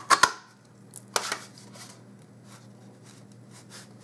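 Handheld tag punch clacking through cardstock: two sharp clacks at the start and a third about a second in, followed by soft paper rustling as the cardstock is handled in the punch.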